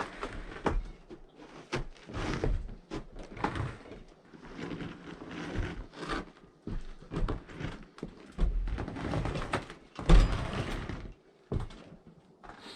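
Irregular knocks, thuds and scraping noises, the loudest thud about ten seconds in.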